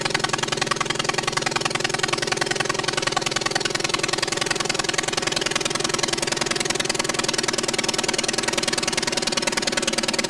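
Light aircraft's piston engine running steadily, with a rapid, even pulsing.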